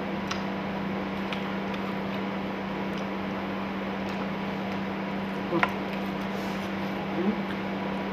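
Steady low electrical hum of a household appliance with background hiss, broken by a brief sharp sound about five and a half seconds in.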